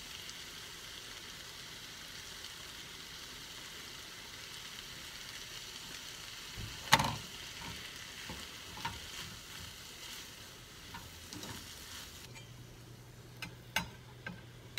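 Diced potatoes and vegetables sizzling in a frying pan with a little water added to steam them, with a sharp clack of the spatula against the pan about seven seconds in and a few lighter knocks as they are stirred. Near the end the sizzle turns muffled as the lid goes on to steam the potatoes.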